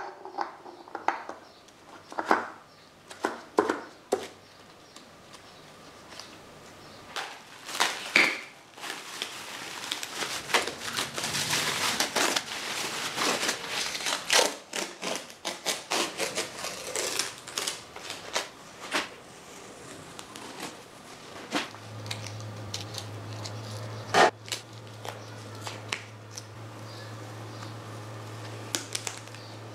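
Masking tape being peeled off a Harley Sportster's painted engine casings, with tearing and crinkling, and sharp clicks and taps as gloved hands handle the parts. A steady low hum comes in about two-thirds of the way through.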